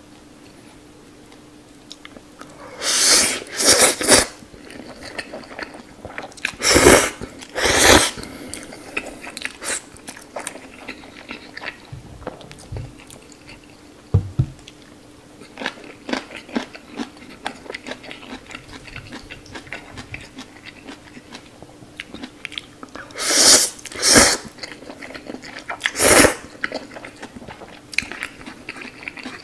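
Close-miked eating of spicy instant noodles: several loud, short slurps, mostly in pairs, a few seconds in and again near the end, with wet chewing and crunching of noodles and kimchi in between.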